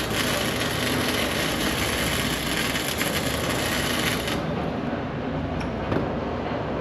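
Electric arc welding on steel: a continuous crackle for about four seconds, then the arc stops.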